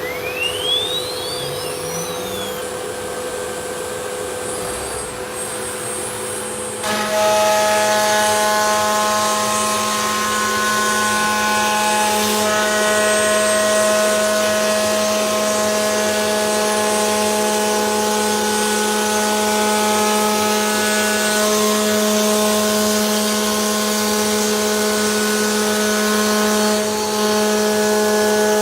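CNC router running: a whine climbs in pitch over the first couple of seconds, typical of the spindle spinning up. About seven seconds in, a louder, steady machine noise with several held tones sets in and continues.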